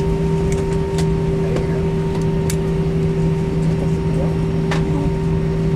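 Airliner cabin noise while taxiing after landing: a steady low rumble with a constant multi-pitched hum from the engines and cabin air system. A few faint clicks come through, about a second in, around two and a half seconds in, and near the end.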